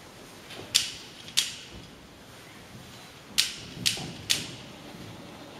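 Five sharp metallic clicks from the muzzle-loading-era gun's firing mechanism, two about a second in and three more a couple of seconds later, without the gun going off: a misfire.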